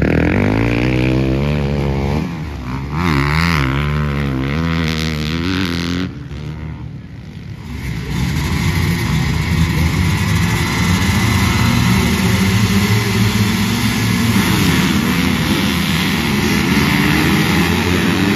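A single dirt bike engine revving up and down for about six seconds. After an abrupt change, a line of motocross bikes runs together at the starting gate: a dense, steady engine drone with revs rising and falling.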